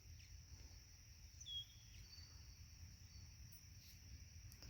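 Faint outdoor ambience at near silence: insects trilling steadily at a high pitch, with a few short bird chirps, the clearest about a second and a half in.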